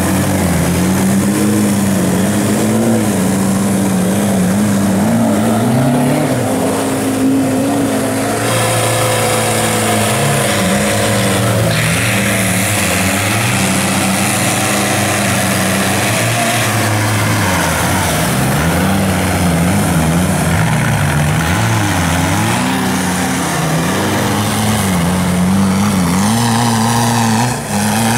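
Engine of a 4x4 off-road race vehicle revving, its pitch rising and falling again and again as the throttle is worked.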